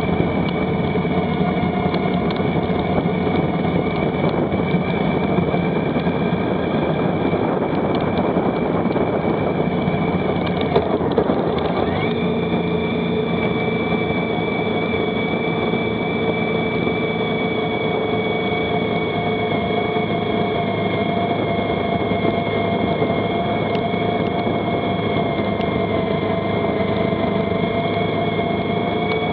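Motorcycle engine running at a steady cruising speed while riding. The drone holds steady, with a slight change in pitch about twelve seconds in.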